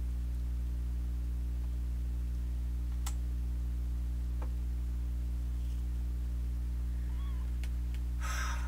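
A kitten's short sharp cry near the end, over a steady low electrical hum that runs throughout, with a couple of faint clicks before it.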